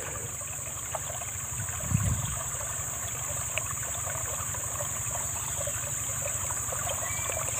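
Steady running water of a stream with a constant high hiss above it, and a brief low sound about two seconds in.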